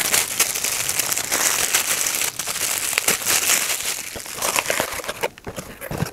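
Clear plastic wrapping crinkling and crumpling as it is handled around a camera lens and balled up in the hand; near the end the crinkling thins to a few separate taps and rustles as hands go into the cardboard box.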